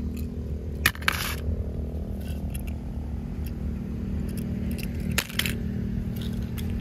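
Small toy cars handled on a stone surface: a few short clicks and taps as they are picked up and set down, over a steady low hum.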